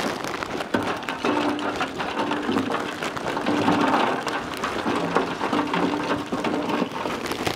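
Lump charcoal pouring from a bag into the metal hopper of a Masterbuilt Gravity Series 560 smoker, the pieces clattering and rattling in a dense stream. A low steady tone comes and goes under the clatter.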